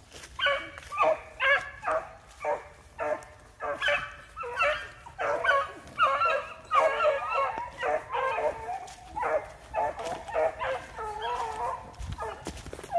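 Petits Bassets Griffons Vendéens baying in full cry as they chase a rabbit: a rapid, nearly unbroken run of short yelping cries from several hounds at once. The cries begin about half a second in.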